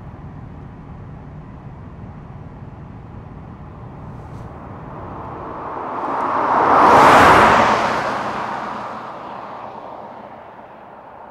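A car passes close by at road speed. The tyre and engine noise swells, is loudest about seven seconds in, then fades as the car drives off.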